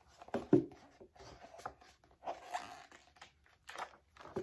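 Paper rustling as a page of a hardcover picture book is handled and turned, with a soft thump about half a second in.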